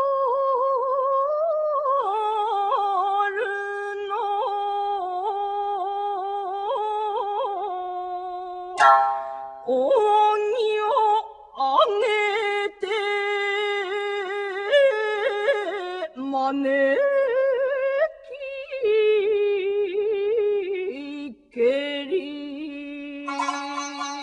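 Music: a solo voice singing long, wavering melismatic notes of a Japanese narrative chant. A sharp plucked-string stroke comes about nine seconds in, and another near the end.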